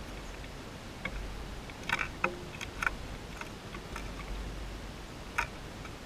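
A small brown sparrow pecking at the edge of a seed-strewn bird bath, a scatter of short sharp ticks, several close together about two seconds in and one more near the end.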